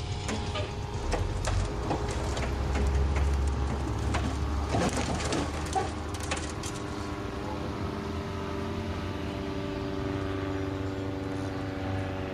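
A vehicle engine running steadily, with a series of sharp knocks and cracks over the first half that then stop.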